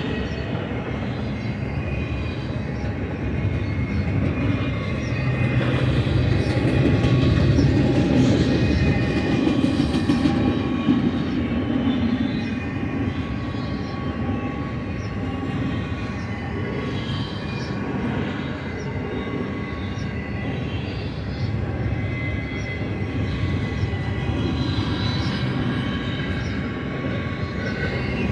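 Double-stack intermodal freight train's well cars rolling past: a steady rumble of steel wheels on rail, with faint thin squealing tones from the wheels over it.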